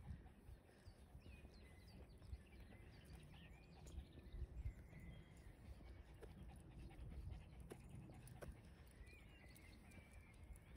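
Faint outdoor quiet with small birds chirping now and then. Close by, a dog's panting.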